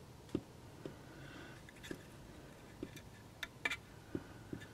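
Faint, irregular light clicks and taps as fingers handle thin hookup wires and small parts on a model locomotive's chassis: several small ticks, a few of them close together past the halfway point.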